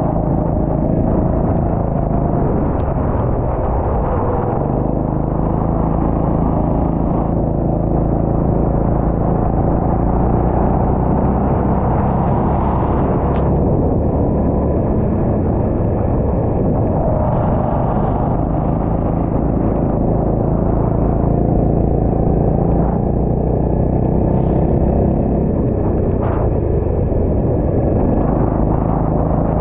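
Go-kart engine running under load through a lap on a wet track. Its pitch rises and falls a little as the kart speeds up and slows for the corners.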